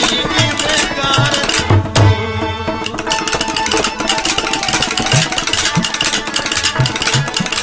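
Music with hand-drum beats under sustained instrumental tones, the drum thumping about every half second.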